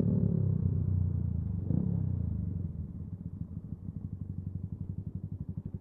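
Single-cylinder engine of a Yamaha MT-125 motorcycle running, its revs swinging twice in the first two seconds; about two and a half seconds in it drops to a quieter, even low-rev putter.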